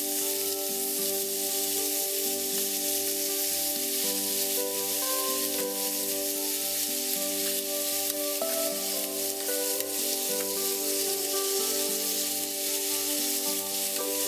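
Chopped bacon with brown sugar sizzling and crackling in a hot frying pan as its fat renders and the bacon candies, stirred with a wooden spatula. Background music with a steady beat plays over it.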